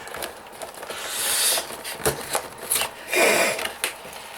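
A taped toy package being pried and torn open by hand: scraping and rubbing with a few sharp clicks, the tape holding firm.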